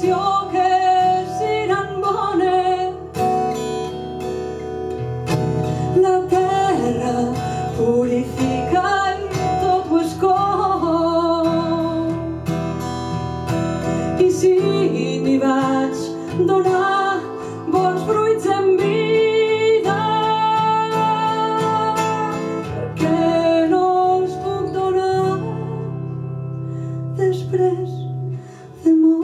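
A woman singing a slow song to her own acoustic guitar, with a long held note a little past the middle.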